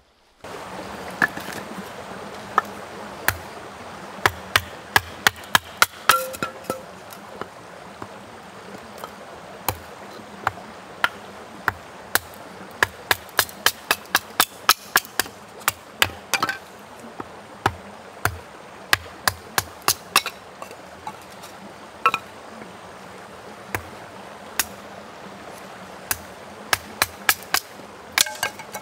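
Hatchet splitting kindling on a wooden chopping block: a long series of sharp wooden knocks, irregularly spaced, at times several in quick succession, over a steady rushing background.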